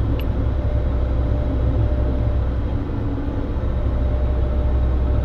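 Heavy truck's diesel engine held at a fast idle of about 1200 to 1400 rpm, heard from inside the cab, running steadily while its air compressor builds brake pressure from 85 to 100 psi.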